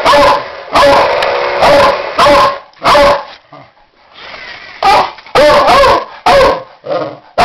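Beagle mix barking loudly and repeatedly: two quick bouts of barks with a pause of over a second in the middle.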